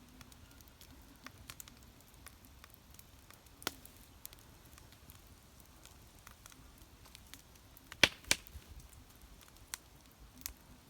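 Wood fire crackling: irregular sharp pops and snaps, the two loudest close together about eight seconds in.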